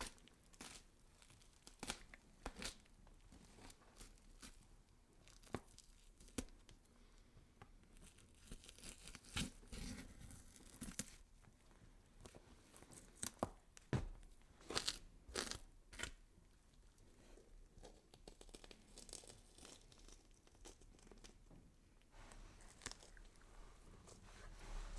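A horror sound effect of irregular, quiet crunching and tearing: scattered sharp crackles and snaps, bunching into denser flurries about ten seconds in and again a few seconds later.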